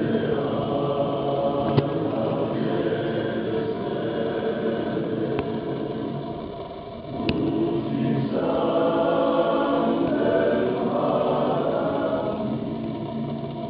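Male choir singing in harmony with long held chords in a large church. One phrase fades out about seven seconds in, and the next swells up a second later before tapering off near the end.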